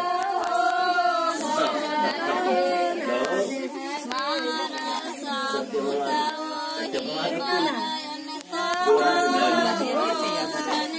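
A group of women singing a devotional song together, long held melodic phrases with short breaks between them.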